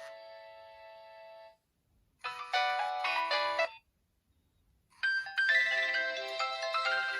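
Nokia 2600 polyphonic ringtones played one after another. A held chord fades out about a second and a half in. After a short gap comes a brief melodic tune of about a second and a half, and after another gap a new ringtone melody starts about five seconds in.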